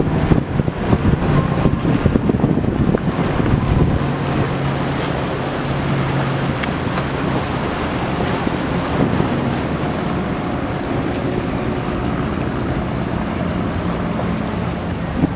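Pershing 92 motor yacht passing under power: its diesel engines run with a steady low drone over the rush of its wake and the surf. Wind gusts on the microphone for the first few seconds.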